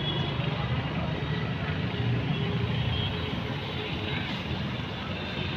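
Steady background noise with a low rumble, even and unbroken.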